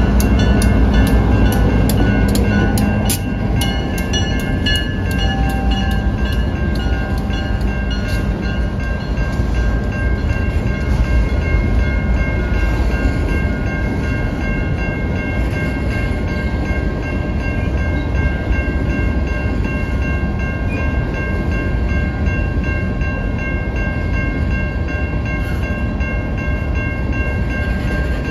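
CN diesel freight train passing close by. In the first few seconds the trailing locomotive goes by with its engine hum and a quick, regular run of wheel clicks. Covered hopper cars then roll past with a steady rumble and a few faint, steady high-pitched tones.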